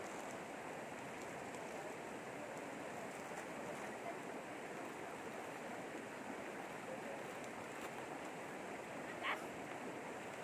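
Shallow river rapids rushing steadily over rocks, a continuous babbling wash. A brief high-pitched sound stands out about nine seconds in.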